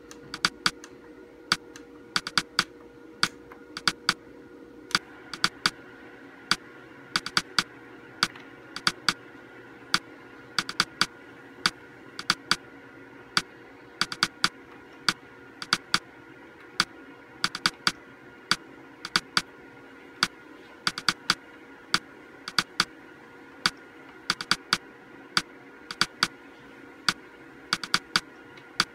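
Plastic push-buttons on an LG Flatron monitor's bezel clicking irregularly, often two or three in quick succession, as its on-screen menu is stepped through. A steady low hum runs underneath.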